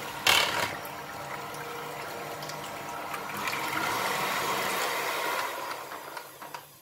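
Electric hand mixer running, its beaters whisking eggs and mayonnaise in a plastic bowl with a steady wet whirr. A sharp knock comes shortly after the start, and the sound fades and stops near the end.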